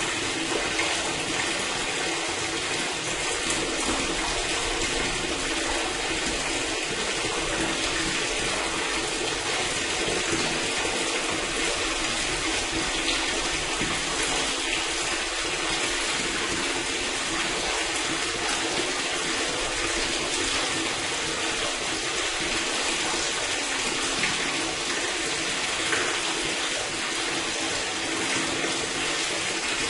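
Water pouring steadily through a sewer drain or gully, an even rushing hiss that stays constant throughout.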